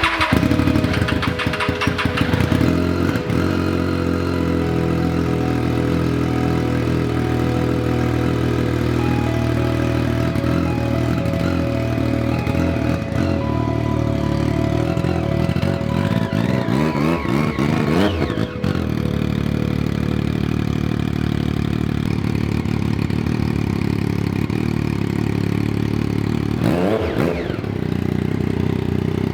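2009 Triumph Daytona 675's three-cylinder engine catching with a clattery start, then idling steadily after its rebuild, with two brief throttle blips, one past the middle and one near the end.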